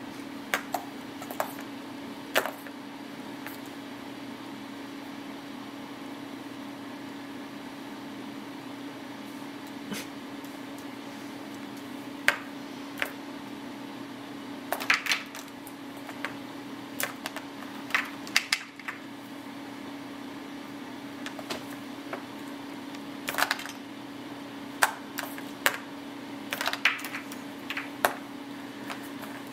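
Scattered light taps, clicks and scratches of a kitten's paws and claws and a stylus on a plastic graphics tablet, coming in short flurries over a steady low hum.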